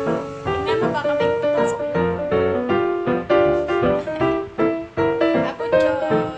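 Background music: a piano tune of quick struck notes, each fading after it is struck.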